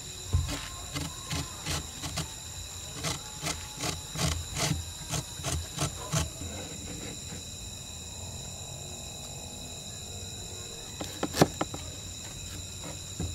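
A carrot rubbed against a metal box grater in repeated rasping strokes, about two to three a second, which stop about six seconds in. A few sharp knocks of a knife on a wooden cutting board come near the end.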